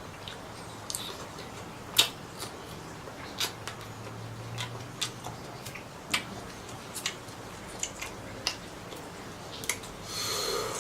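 Irregular sharp clicks or taps, roughly one a second, over a faint low steady hum, with a short hiss near the end.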